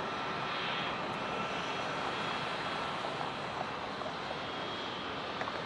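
Jet engines of a Delta Boeing 757-200 running at taxi power: a steady rushing hiss with a faint high whine.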